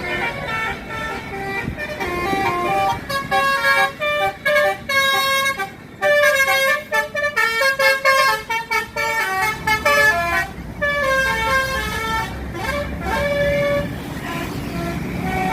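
Basuri telolet bus horn playing a melody of quick stepped notes, broken into short toots, with the fastest run of notes in the middle. Bus engine rumble underneath in the second half.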